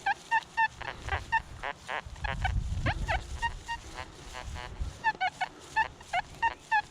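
Metal detector's audio response over a buried target: a run of short electronic beeps, some sliding up or down in pitch, about two to four a second. A low rumbling noise sits underneath in the middle.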